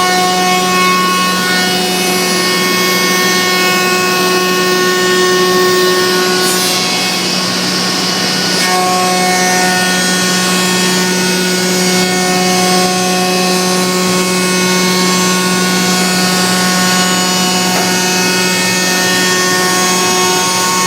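Biesse Rover CNC router running as it machines a wooden door: a steady hum under several high whining tones from the spindle and cutter, with a louder hiss taking over briefly about seven seconds in before the whine returns.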